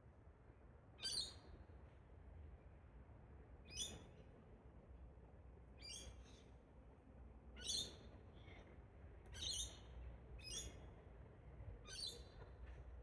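A bird giving short, high calls, repeated about every one to two seconds, about seven times.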